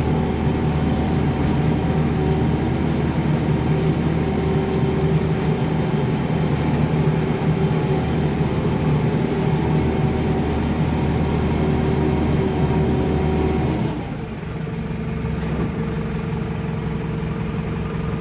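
JCB backhoe loader's diesel engine running steadily, then dropping in pitch and loudness about 14 seconds in.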